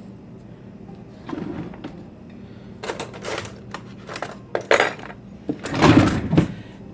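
Plastic K-cup coffee pods clattering and knocking as they are handled, in several short rattling bursts over a low steady hum.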